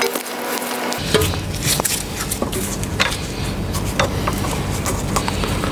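Irregular small metallic clicks and knocks of hand tools and brake-line fittings being handled, with a steady low rumble underneath from about a second in.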